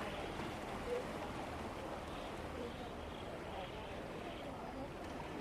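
Outdoor ambience: indistinct voices of people talking at a distance over a steady low rumble.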